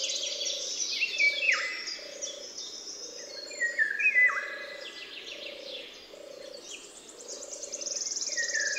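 A chorus of songbirds singing, several overlapping songs with high rapid trills and falling whistled phrases. Under them a low note pulses steadily, about every 0.7 seconds.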